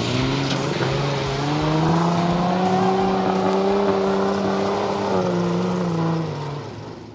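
Off-road 4x4 engine revving hard under load as the truck climbs out of a mud pit; the pitch rises about two seconds in, holds high, then drops near the end as the sound fades away.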